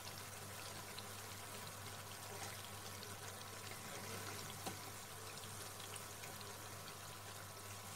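Hot oil sizzling steadily around Bombay duck fish patties deep-frying in a wok, a fine even crackle, with a light tick about halfway through.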